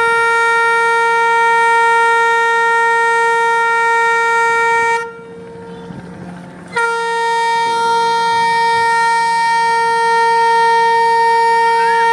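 Ship's horn of the ro-ro passenger ferry KM Kirana III sounding long blasts: one steady note rich in overtones that stops about five seconds in, then after a short pause a second long blast. These are part of the three long blasts sounded as the ferry leaves port.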